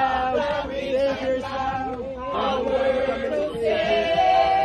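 A group of people singing a worship chorus together in the open air, several voices overlapping, with long held notes.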